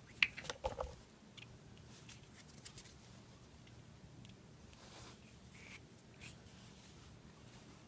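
A small folding hardwood box pipe being handled and folded in the fingers: a few light clicks and taps of the wooden halves, the loudest in the first second, then faint scattered ticks.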